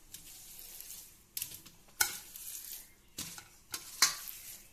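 Stainless-steel bowls and containers clinking and scraping as food is dished out. A soft scraping hiss comes first, then several sharp, irregular metal clinks.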